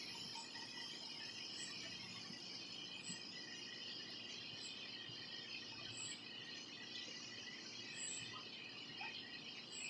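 Faint evening insect chorus: a steady high trill, with short high chirps repeating every second or two.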